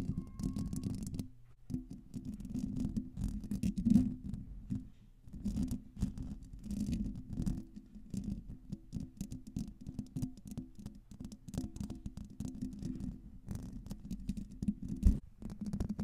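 Long fingernails scratching and rubbing the metal mesh grille of a Blue Yeti microphone close up: a dense, scratchy crackle full of small ticks. It breaks off briefly about a second in, and there is one sharp, loud knock near the end.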